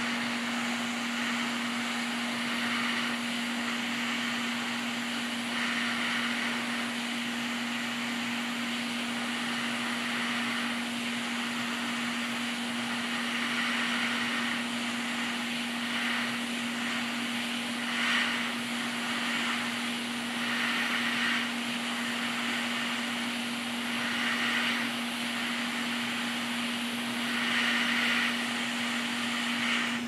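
Hot-air rework station blowing hot air onto a PS5 motherboard's HDMI port to melt its solder for removal: a steady hiss of air over a constant low hum. The hiss swells briefly every few seconds.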